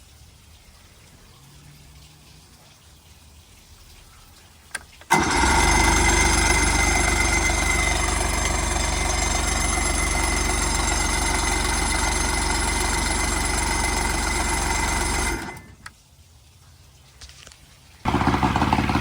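70 hp Johnson outboard motor being started: about five seconds in, a loud, steady engine sound comes in, runs for about ten seconds and cuts off suddenly. Near the end the motor starts again and keeps running.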